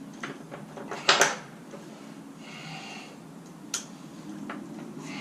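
Metal tools clanking as a big 36mm socket and wrench are handled and set on a motorcycle's rear axle nut. There are a couple of loud sharp clacks about a second in, a short rattle a little later, and a single click near the end.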